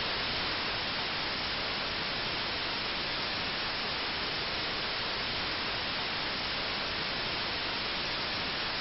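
Steady hiss of television static.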